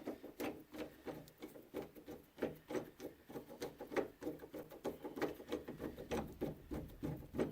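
Hand screwdriver turning screws into a door lock's mounting holes: a quick, uneven run of small clicks and scrapes, several a second, as the screws are tightened.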